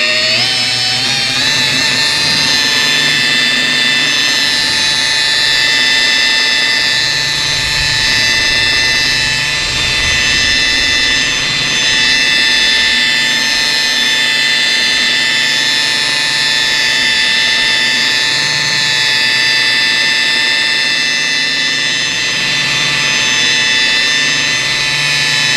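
DeWalt electric rotary polisher with a foam pad running steadily on a car's painted panel, a whine made of several tones. The whine rises in pitch during the first second or so as the motor comes up to speed, then holds level.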